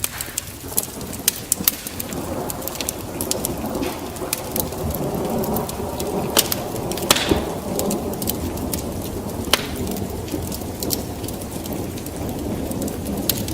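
Steady rain with a low roll of thunder that swells through the middle and slowly fades, over many sharp crackles and pops from a wood fire.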